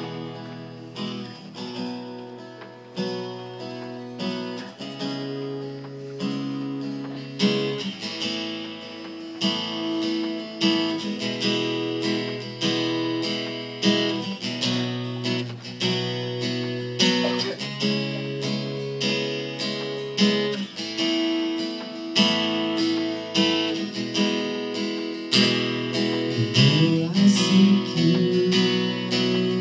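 Acoustic guitar strummed in a steady rhythm, its chords changing every second or two, leading into a worship song.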